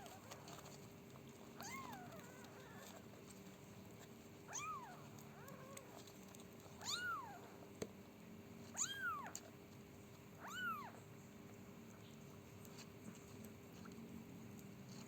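Cat mewing: five short, high calls, each rising and then falling in pitch, a couple of seconds apart.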